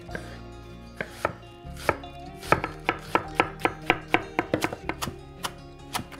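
Knife chopping vegetables and herbs on a wooden cutting board. A few separate knocks come in the first two seconds, then a quick run of blade strikes at about four a second through the middle, and a couple more near the end.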